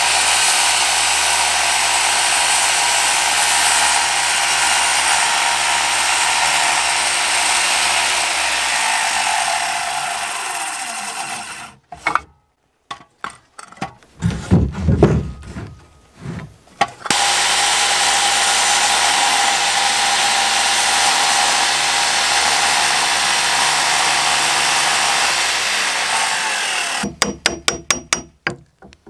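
Bosch corded circular saw running and cutting a row of shallow kerfs, set 1.5 inches deep, across a wooden post. It stops a little before halfway, a few knocks follow in the pause, and then it cuts again. Near the end comes a quick run of hammer blows on a chisel.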